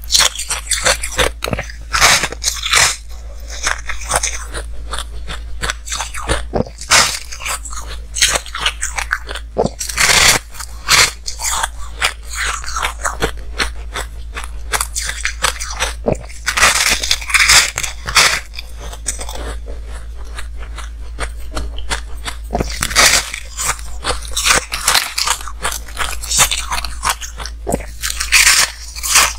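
Close-miked eating of ice: a slab of frozen ice is bitten and the pieces chewed, with dense rapid cracking and crunching. Louder bursts of crunching come with the bites, about every six seconds.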